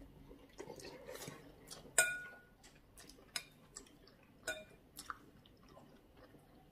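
Cutlery clinking against plates during a meal: a few sharp clinks, the loudest about two seconds in with a brief ring.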